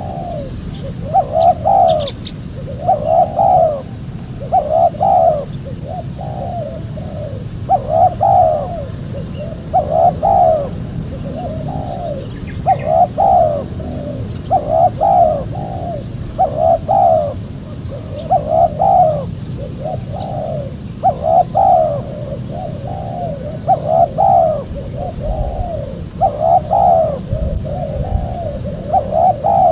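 Spotted dove (tekukur) cooing over and over in short phrases of a few coos, about one phrase every two seconds, over a steady low background hum.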